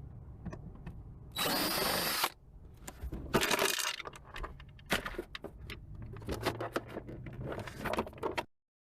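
Power drill/driver running in two short bursts, about one and a half and three and a half seconds in, with clicks and knocks of car interior parts being worked loose in between; the sound cuts off abruptly near the end.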